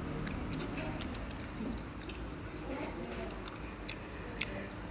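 A person eating noodles, slurping and chewing, with scattered light clicks of wooden chopsticks against a clay pot; the sharpest click comes near the end.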